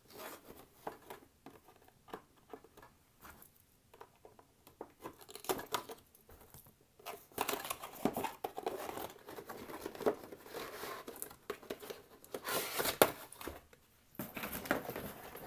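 Packaging of a diecast model car being opened by hand: wrapping crinkling and tearing, with scattered light clicks and taps, busier and louder from about halfway through.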